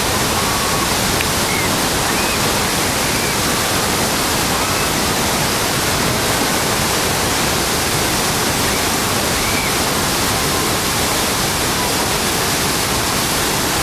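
Niagara Falls' water pouring down heavily close by: a loud, steady, unbroken rush.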